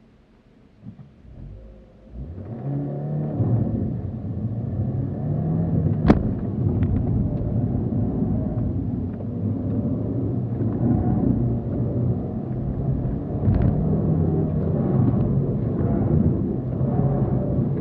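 Opel Corsa's engine heard from inside the cabin: quiet at first, then revving up hard as the car pulls away from standstill about two seconds in, and running at high revs with the pitch rising and falling as it accelerates and lifts. A single sharp knock about six seconds in.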